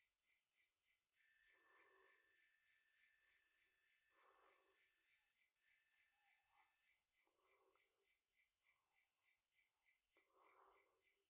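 Faint night insect chirping: a high-pitched pulse repeating steadily about three to four times a second, with softer, lower calls coming in every few seconds.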